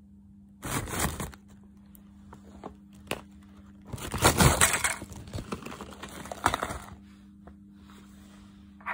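Foil-lined Calbee potato chip bag crinkling as it is handled. From about four to seven seconds in it is tipped, and ridged potato chips slide out and fall into a ceramic bowl with many small clicks.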